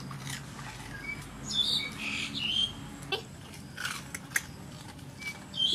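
Dogs eating crispy fried pork skin, with a few sharp crunches about three and four seconds in. Short high chirping squeaks come and go around them.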